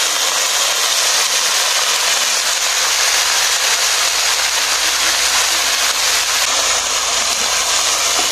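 Chopped leafy greens sizzling and steaming in hot oil in an iron wok: a steady hiss.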